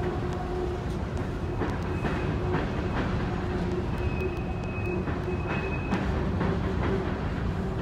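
Empty coal hopper cars rolling past: a steady rumble of steel wheels on rail, with irregular clicks as the wheels cross rail joints. A faint thin high tone comes and goes in the middle.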